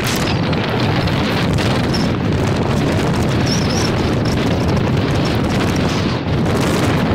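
Haboob wind gusting hard across the microphone: a loud, steady rumble of wind buffeting.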